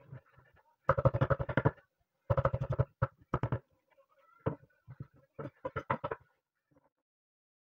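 Kitchen knife chopping fresh green herbs on a wooden cutting board. Three quick runs of strokes, about ten a second, with a few single strokes between them.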